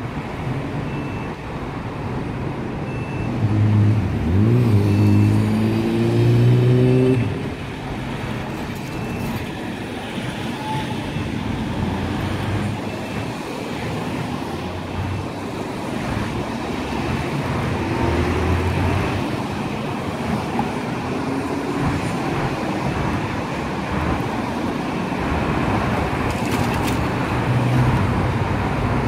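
Steady street traffic at a city intersection: cars driving through with engine and tyre noise. About four to seven seconds in, a heavier vehicle's engine rises in pitch as it pulls away, the loudest part.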